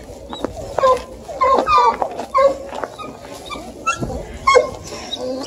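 Beagle puppies yipping and whining: a string of short, high calls, some bending up and down in pitch.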